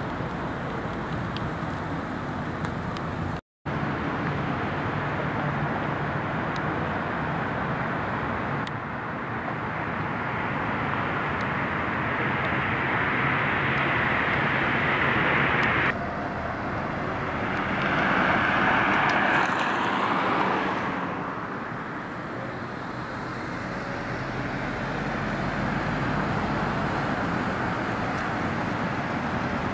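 Road traffic: cars passing on the road with a low steady hum underneath, one vehicle swelling past about eighteen to twenty seconds in. The sound cuts out briefly a few seconds in.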